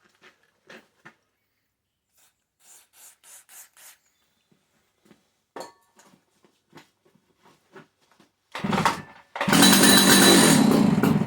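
A few short hisses of brake cleaner sprayed into the air intake, then the Stihl 056 AV's two-stroke engine catches on a pull and runs loudly for about two seconds on the brake cleaner before dying. It runs only on the spray because fuel is not getting from the tank into the carburettor.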